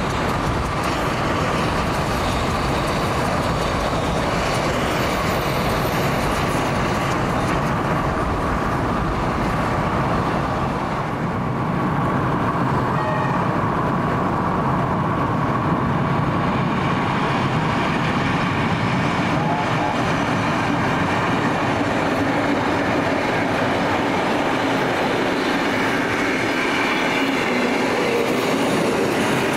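Heritage passenger train rolling past, a steady rumble of steel wheels on the rails with some clickety-clack.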